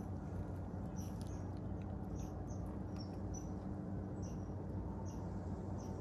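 Short, high chirps of a small bird, repeated irregularly a few times a second, over a steady low background hum.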